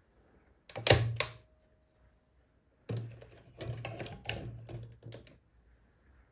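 Odhner Model 8 pinwheel calculator being worked by hand. About a second in, the carriage is shifted one place with a few sharp metallic clicks. From about three seconds in, the hand crank is turned in the plus (multiplication) direction, a run of clicks and gear rattle lasting about two and a half seconds.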